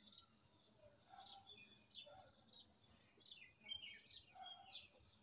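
Faint bird chirping in the background: short, high, falling chirps repeated about one to two times a second.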